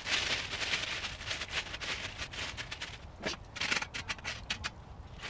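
Plastic carrier bag rustling and crinkling as it is opened out, followed by a run of short sharp clicks and scrapes from handling.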